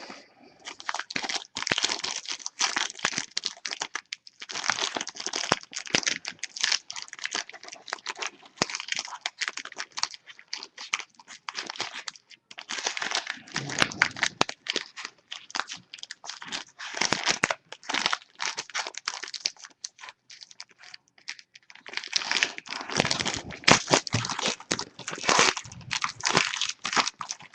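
Plastic shrink wrap crinkling and tearing as a sealed box of football cards is unwrapped and opened, in long bouts of crackling with short pauses.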